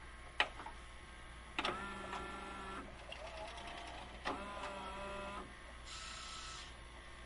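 VCR tape mechanism working on a VHS tape: a sharp click, then twice a clunk followed by about a second of motor whirring with a steady whine, and a short hiss near the end.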